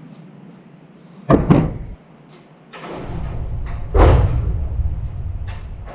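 Handling noise from work on a mini bike: a heavy clunk about a second in, then a few seconds of rumbling and scraping with another knock partway through.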